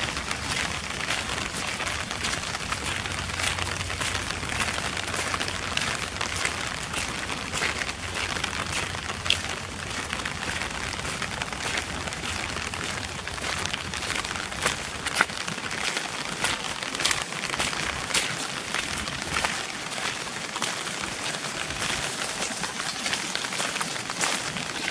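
Heavy rain falling steadily, with many sharp drops ticking close by.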